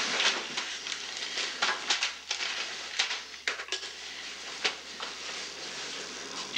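A refrigerator door pulled open and drinks knocked about inside it: a string of scattered clicks and clinks over steady tape hiss.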